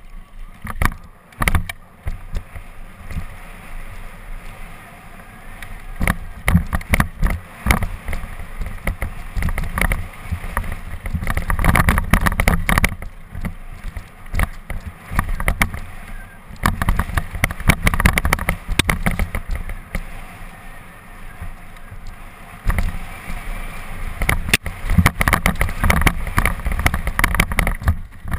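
Downhill mountain bike rattling and knocking over a rough dirt and rock trail, with tyres crunching and a heavy low rumble of wind on the rider's camera microphone. The clatter is busiest and loudest on two fast stretches, the first in the middle and the second near the end.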